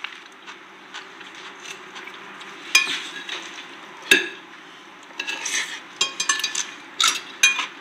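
Tableware clinking: a water glass set down, then plates and cutlery knocking together. Single sharp clinks come about three and four seconds in, and a quick run of clinks comes near the end, over a steady low hum.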